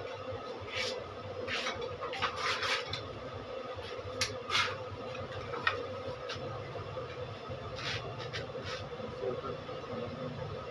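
A steady low hum, with a dozen or so short, sharp clicks and scrapes scattered over it, the loudest about two and four and a half seconds in.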